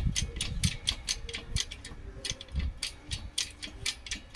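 Rapid, even ratchet-like clicking, about four clicks a second, from the press tool driving a new wheel bearing into the hub housing of a 2013 Chevrolet Aveo, with a few dull low knocks among the clicks.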